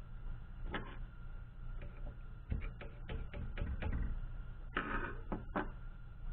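Clicks and metallic clatter of hand tools being picked up and set down on a workbench and of the drill press motor's stepped pulley being handled: one click about a second in, a run of quick clicks a little past halfway, and a louder clatter near the end.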